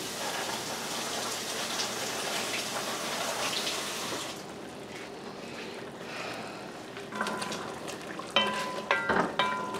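Curried chicken simmering and sizzling in a large pot as the sauce reduces, loudest in the first few seconds. Near the end a spoon stirs the pot and knocks against its metal side with ringing clanks.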